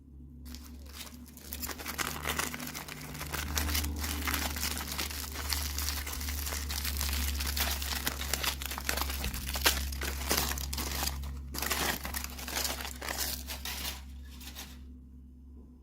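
Packaging being crinkled and torn open by hand: a dense, continuous crackle that starts about half a second in, pauses briefly near 11 seconds, and stops shortly before the end.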